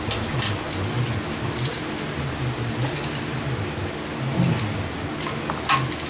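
Scattered small metal clicks and taps from hand tools working on the engine, in short clusters of two or three, several times.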